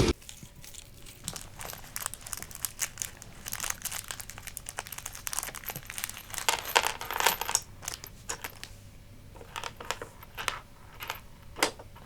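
Small metal drone-frame parts and screws clicking and clinking as they are handled and set down on a hard surface, in irregular scattered taps that come thickest around the middle, with one sharp click near the end.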